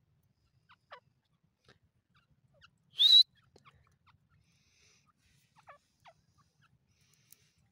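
A teetar (francolin) gives one short, loud, high-pitched call about three seconds in that rises and then holds. Faint short chirps come before and after it.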